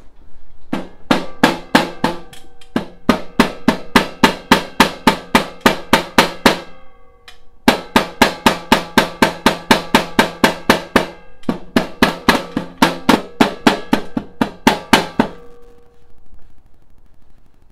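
Rapid mallet blows on a black steel stovepipe, about four or five a second, in two long runs with a short pause between them. Each blow leaves a brief pitched metallic ring. The pipe is being driven home into its wall fitting.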